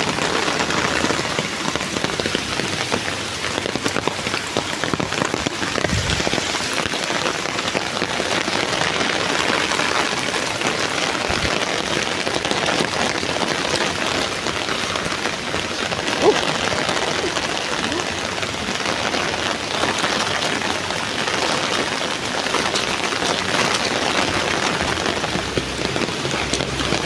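Heavy rain falling steadily onto surfaces, a dense even hiss of drops, with one brief louder knock about two-thirds of the way through.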